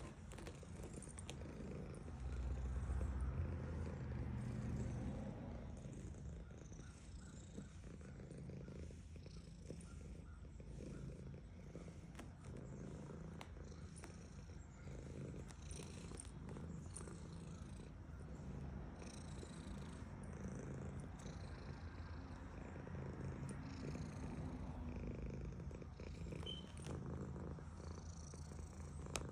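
Domestic cat purring steadily while being petted, a low pulsing rumble that swells louder a few seconds in and then settles.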